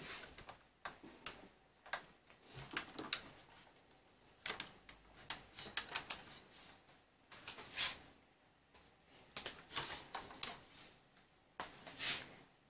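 Irregular light clicks and taps, several a second in places, with a couple of short rustling scrapes, from hands adjusting and repositioning the camera.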